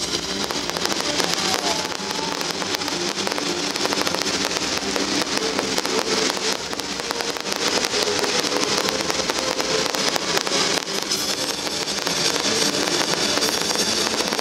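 Firework shells bursting overhead, with dense, continuous crackling from gold crackle-star effects, over music playing underneath.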